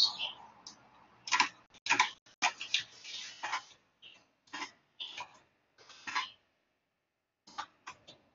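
Computer mouse clicking irregularly: about a dozen short, sharp clicks, some in quick runs, with a pause of about a second near the end.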